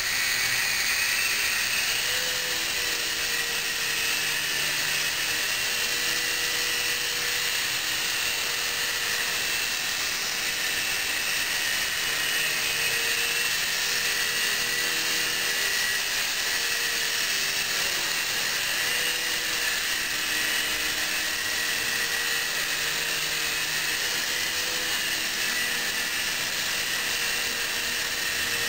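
Mini indoor RC helicopter's small electric motors and rotors running in flight: a steady high-pitched whine whose pitch wavers slightly up and down.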